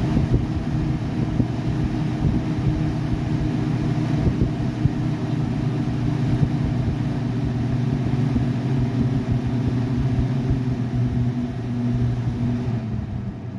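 Essick Air evaporative humidifier's fan motor running at its top speed with a steady, low buzzing hum, a buzz the owner puts down to the fan having been used quite a bit. Near the end the fan is turned down and the buzz dies away.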